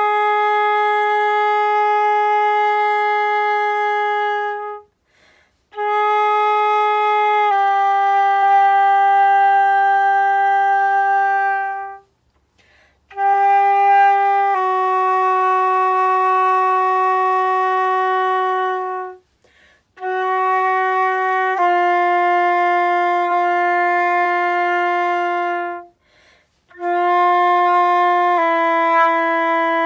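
Flute playing long tones: held, steady notes in phrases of about six seconds, each a short note stepping down to a longer sustained one, with each phrase starting a little lower than the last. Short breath pauses come between phrases. This is long-tone practice, the daily warm-up exercise for building flute tone.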